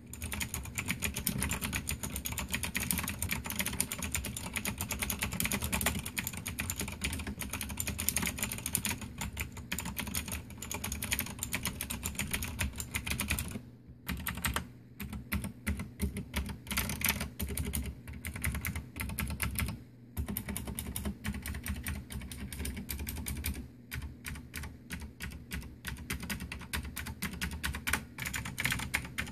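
Fast typing on a Cherry G80-3497 mechanical keyboard with clicky Cherry MX Blue switches: a dense run of key clicks that pauses briefly a few times.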